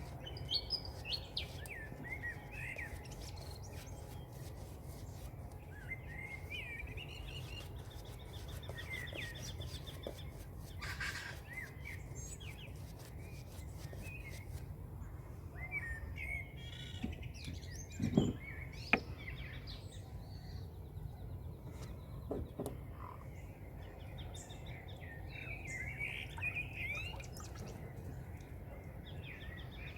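A chorus of several birds chirping and singing, with short warbled calls and buzzy trills throughout, over a steady low rumble. A brief, sharper knock about 18 s in is the loudest single sound, with a few scattered clicks.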